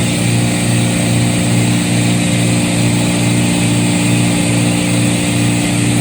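Refrigeration condensing unit running, compressor and condenser fan, giving a loud steady hum with a low throb a few times a second over a constant hiss. The unit is running at high head pressure, close to 400 psi.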